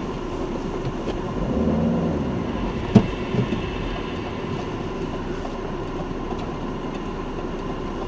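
Driving noise heard inside a car's cabin: a steady rumble of engine and tyres as the car slows to a stop behind a bus. There is a single sharp click about three seconds in.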